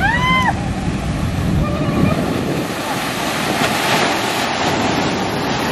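Heavy ocean surf breaking against a lava rock ledge, with wind on the microphone; the noise swells as a big wave crashes about four seconds in. A short high call that rises and falls sounds at the very start.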